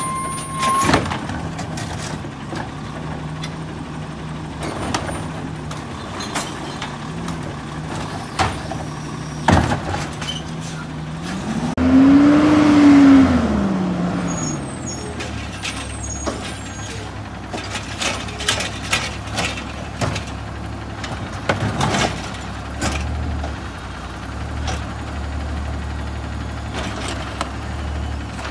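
Garbage truck engine running steadily, with repeated knocks and clanks throughout. About twelve seconds in, the engine revs up and then drops back, the loudest moment. A steady high beep cuts off about a second in.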